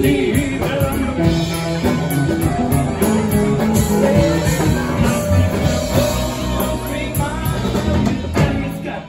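Live rock band playing with a sung vocal: electric guitars, mandolin and drum kit, heard through the room. The band stops abruptly just before the end.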